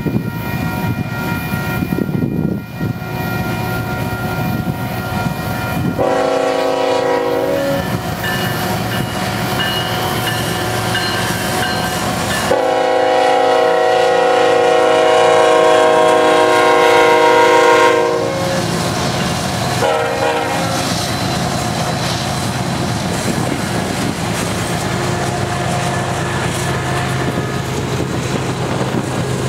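Union Pacific diesel freight locomotive sounding its multi-chime horn while passing: a short blast about six seconds in, a long blast of about five seconds, then a short blast near twenty seconds, over the steady running of the locomotives and wheels on rail. Afterwards the freight cars roll past.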